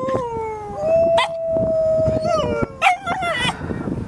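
Siberian huskies howling, long held howls that slide slowly down in pitch, two overlapping at the start, with a few short sharp yips breaking in.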